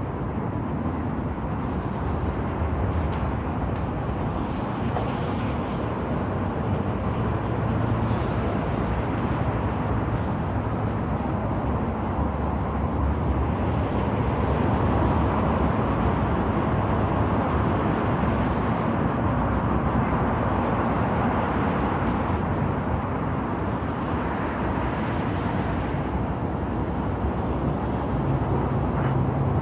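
Steady road traffic: cars passing in a continuous rush of engine and tyre noise, swelling a little in the middle.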